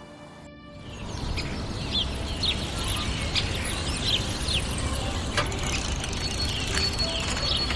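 Birds chirping: many short, quick chirps and whistles over a steady rushing background noise, which comes in about a second in.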